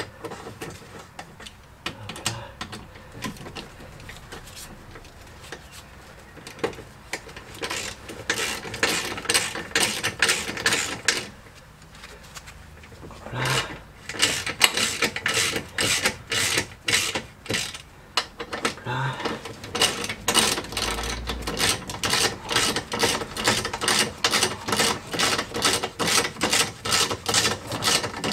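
Hand ratchet wrench clicking in quick, even strokes as the front anti-roll bar bushing clamp bolts are wound in. The clicking comes in three runs with short pauses and starts about a quarter of the way in.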